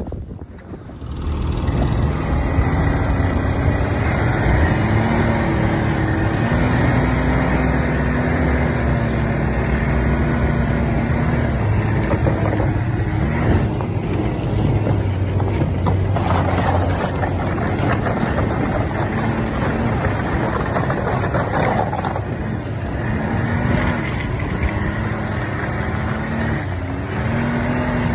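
Snowmobile engine running under way while riding. Its pitch steps up and down with the throttle over a steady rushing ride noise.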